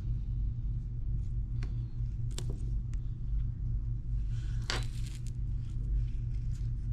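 Steady low hum in the background, with a few faint, short clicks and taps from small tools and parts being handled on a repair bench.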